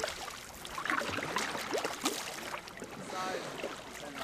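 Canoe paddling on open water: irregular paddle splashes and water lapping against the hull. A brief pitched call comes about three seconds in.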